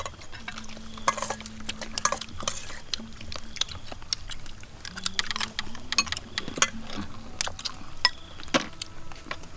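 Metal spoons clinking and scraping against ceramic and glass bowls as people eat: short, irregular clinks and clicks throughout.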